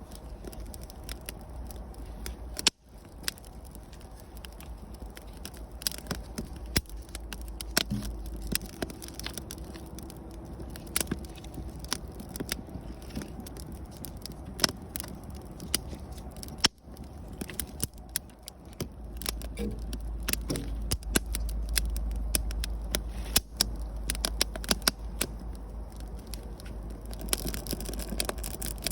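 Wood campfire crackling, with many irregular sharp snaps and pops over a low rumble that grows stronger in the second half.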